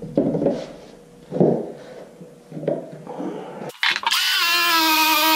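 A few short knocks and rustles of handling, then, near four seconds in, a Milwaukee cordless circular saw starts up and runs loud and steady, cutting through two stacked plywood sheets along a clamped straight edge. Its whine dips slightly in pitch as the blade takes the load.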